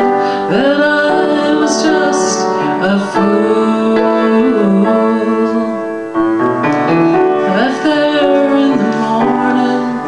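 Live song: a woman singing over piano accompaniment, with sustained chords and bending vocal lines.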